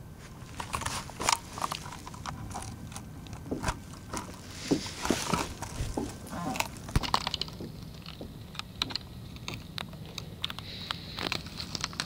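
Irregular crackling and clicking of dry redwood needle litter and camera handling as the camcorder is moved down to ground level.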